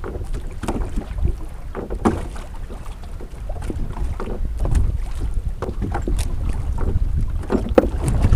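A fish trap (bubu) being hauled up out of the water: irregular knocks and splashes over wind rumbling on the microphone.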